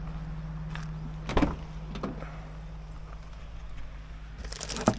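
Kei truck's engine idling steadily, with a knock about a second and a half in and a rattle of clicks ending in a clunk near the end as the truck's door is worked.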